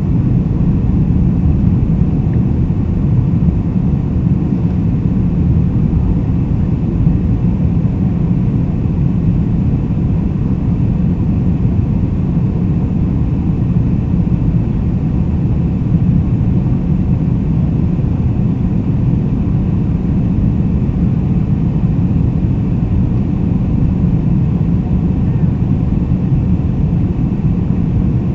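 Boeing 747-400's four turbofan engines, a steady low rumble that holds the same level and pitch throughout, with no rise or fall.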